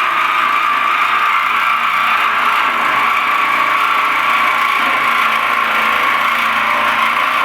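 Ryobi P521 18-volt cordless orbital jigsaw cutting through the steel lid of a barrel, a loud, steady blade noise without a break.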